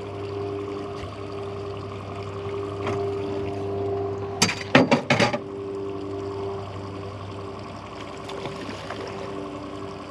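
Outboard motor running steadily at trolling speed, with a quick run of four or five sharp splashes about halfway through as a hooked kokanee salmon thrashes at the surface by the landing net.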